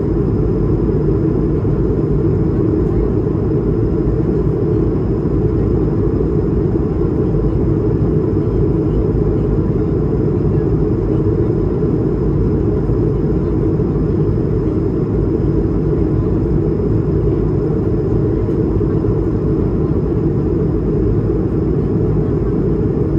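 Steady cabin noise aboard an Airbus A220-300 airliner: the low rush and hum of its Pratt & Whitney PW1500G geared turbofans and passing air, heard from a passenger seat.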